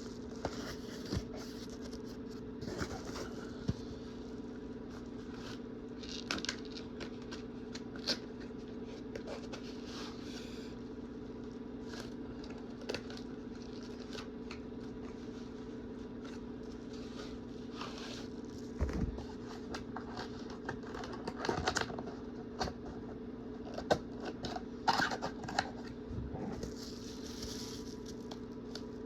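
Packaging of an external DVD drive being handled and opened: scattered clicks, scrapes and crinkles, busier in the second half, over a steady background hum.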